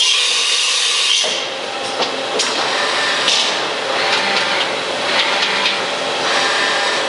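Mitsui Seiki HT3A CNC horizontal machining center running, a steady mechanical noise with spells of hissing, the first about a second long, and scattered sharp clicks and knocks.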